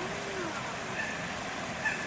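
Steady outdoor background noise, with a short faint call that rises and falls near the start and a faint high call about a second in.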